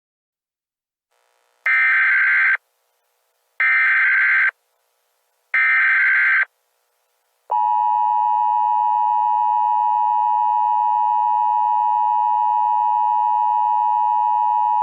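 Emergency Alert System header: three short bursts of SAME data tones about two seconds apart, then the EAS attention signal, a loud, steady two-tone alert starting about halfway through and held to the end.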